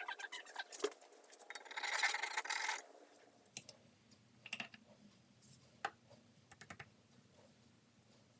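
Scratchy rubbing of an abrasive or file on the wooden maple handle for about three seconds, loudest near two seconds in. A few light clicks and taps of handling follow over a faint steady hum.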